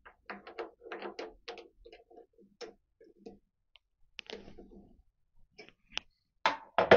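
Light metal clicks and clinks as a turned steel part is handled and set into a lathe's four-jaw chuck: an irregular run of small ticks and knocks, with a couple of louder knocks near the end.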